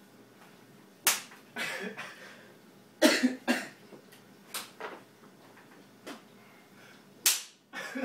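Wooden spoon, held in the teeth, smacking down on a bent-over person's head in the wooden spoon challenge. There are sharp cracks a second or two apart, the loudest about three seconds in and near the end.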